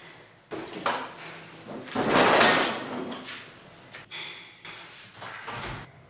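A Cub-style motorbike being handled and rocked up onto its stand: metal clunks and a loud clatter and scrape about two seconds in, followed by lighter knocks and footsteps on the tiles.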